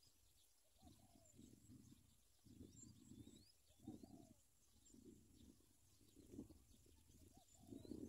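Zebra doves at the nest: a faint string of short, low-pitched bursts about once a second, with faint high chirps of small birds behind.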